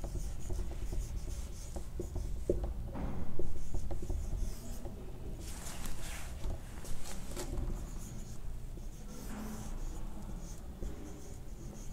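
Marker pen writing on a whiteboard: a run of short scratchy strokes with pauses between, the busiest stretch about three seconds in.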